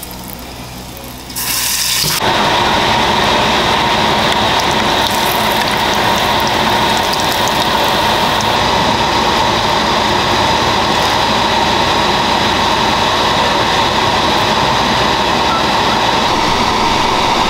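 Hot oil sizzling steadily as a cornflake-coated ice cream ball deep-fries in a small saucepan, starting with a sharp burst of sizzle about two seconds in.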